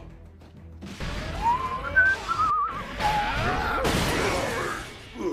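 Cartoon sci-fi action sound effects: a loud rushing blast laced with wavering electronic whistles starts about a second in. It breaks off briefly past the middle, then a second noisy blast follows and fades near the end.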